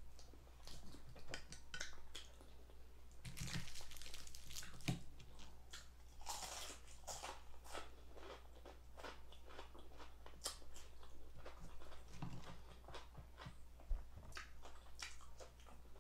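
Close-up mouth sounds of a person eating crispy fried chicken: repeated crunching bites, chewing and lip smacks.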